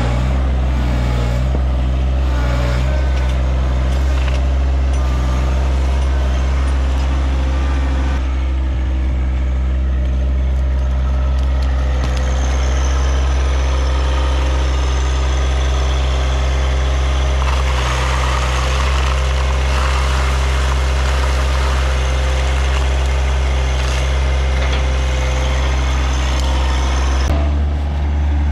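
John Deere 1023E sub-compact tractor's three-cylinder diesel engine running steadily and loud.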